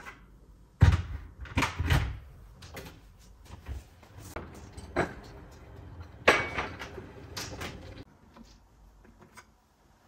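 Household knocks and bumps, like a cupboard or door being opened and shut and things being handled: a loud thump just under a second in, a few more over the next seconds and a cluster midway, then it quietens.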